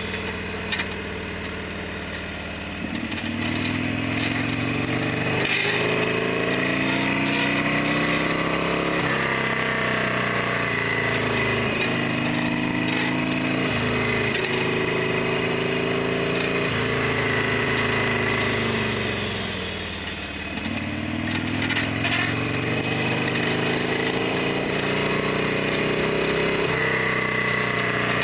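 Harley-Davidson Sportster XL1200R's V-twin engine pulling on the move, its note climbing in pitch and dropping back several times as the bike accelerates and shifts. It eases off twice, about two to three seconds in and again about two-thirds of the way through, then picks up again.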